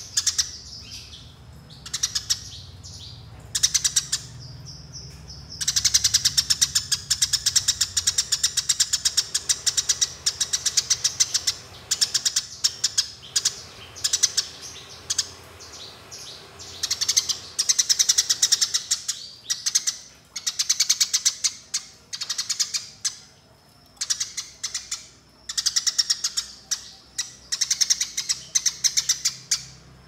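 Eurasian tree sparrow giving its fast, rolling 'fighting' (tarung) chatter: rapid high chirps run together in stretches of several seconds, broken by short pauses.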